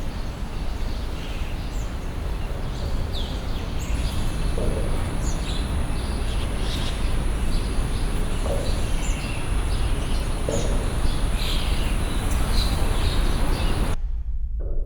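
Field-recorded ambience: a steady wash of background noise with small birds chirping over it and a thin, high, steady tone. About a second before the end the chirps and the higher noise cut off abruptly, leaving only a low rumble.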